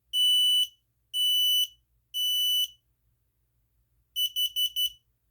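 Kidde KN-COSM-BA smoke and carbon monoxide combo alarm sounding its self-test, with a finger held over the horn. First come three high-pitched half-second beeps about a second apart, the temporal-three fire pattern. After a pause, four short quick beeps follow, the temporal-four carbon monoxide pattern.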